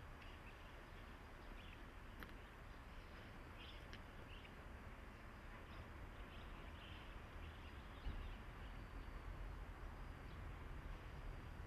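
Faint outdoor ambience: a low steady rumble under a soft hiss, with a few faint short chirps from small birds and a brief low thump about eight seconds in.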